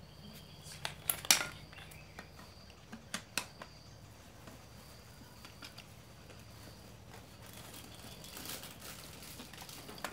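Steel hand tools clinking and tapping against each other and against a brass sprayer pump body as the pump is taken apart: several sharp clicks in the first few seconds, the loudest about a second and a half in, then a brief scraping near the end.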